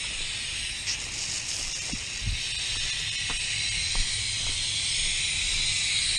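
Steady hiss of liquid spraying onto a refrigeration unit's dirty condenser coil during coil cleaning, with a low hum underneath and a few faint knocks.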